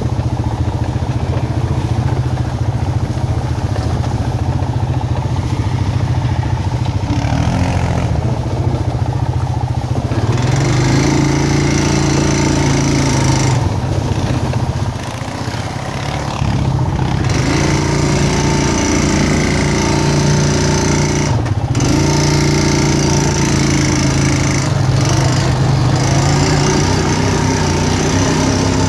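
Four-wheeler (ATV) engine running steadily while riding a trail; its note steps up about ten seconds in as the throttle opens, with a couple of brief dips later.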